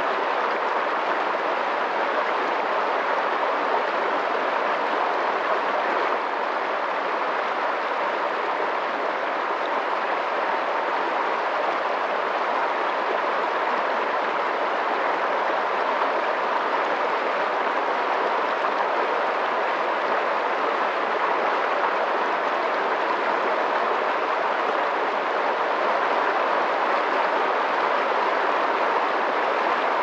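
Swiftly flowing water rushing steadily, with no breaks or changes.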